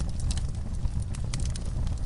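Wood fire burning in a fireplace, crackling: irregular sharp pops and snaps, several a second, over a steady low rumble of the flames.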